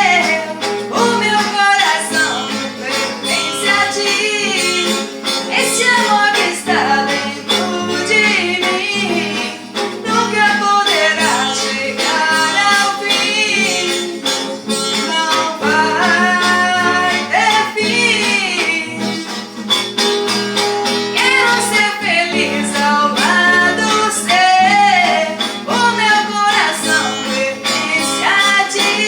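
A song: a woman singing with guitar accompaniment.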